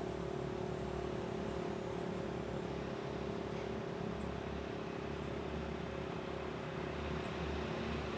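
Federal Signal Model 5 tornado siren sounding the steady alert signal: one continuous tone held at a constant pitch.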